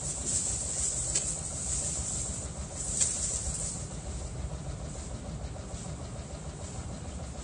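Steady outdoor background noise, a low rumble with a hiss on top, and two faint brief ticks about a second and three seconds in.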